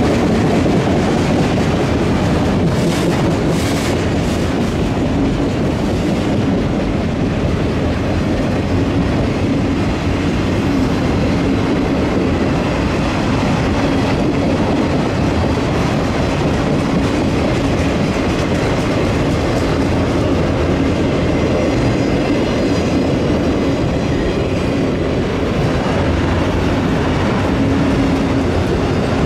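Freight train cars rolling past: a steady, continuous rumble of steel wheels on rail, unchanged in level throughout.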